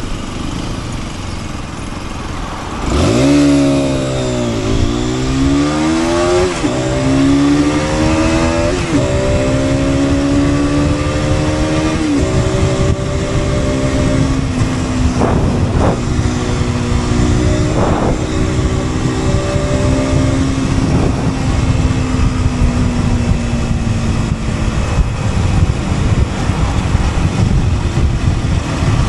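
Aprilia RS4 125's single-cylinder four-stroke engine pulling away hard about three seconds in, climbing in pitch through four upshifts. It then runs at a steady cruise with a few short revs before easing off, leaving mostly wind and road noise near the end.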